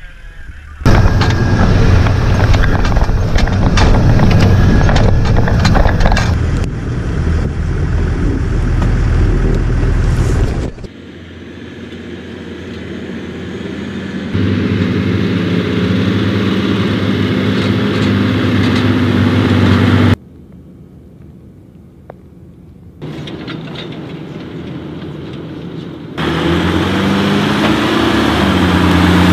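Military 4x4 vehicles running: loud engine and road rumble inside an armoured vehicle's cabin while it drives, then, after abrupt cuts, the diesel engines of URO VAMTAC vehicles running across open ground, rising and falling in pitch near the end.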